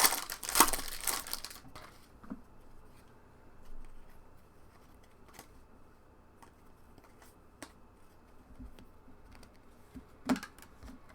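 A 2021 Panini Chronicles Baseball pack wrapper being torn open and crinkled during the first two seconds, then quiet handling of the cards with a few faint clicks.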